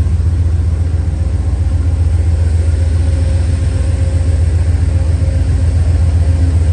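Steady low drone of a stationary passenger train's idling diesel engine, with a faint steady hum above it, heard from inside the car.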